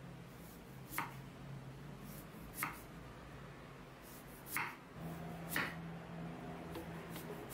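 Chef's knife slicing through a raw carrot and striking a wooden cutting board: four sharp cuts a second or two apart, with a few lighter taps near the end.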